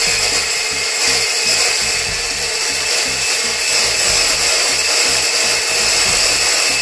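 Electric hand blender running steadily at one speed, its blades whisking egg yolks with sugar in a tall glass.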